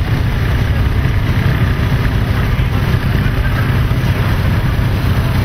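A motor vehicle's engine running steadily at low speed: a constant low drone with road noise.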